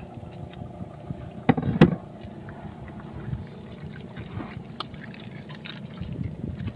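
Knife-work on a blue marlin carcass: two sharp knocks close together about a second and a half in, then quieter scattered clicks and scraping. Under it runs a steady low hum, typical of a boat engine.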